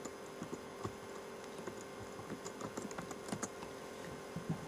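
Typing on a computer keyboard: irregular, light keystrokes over a steady faint hum.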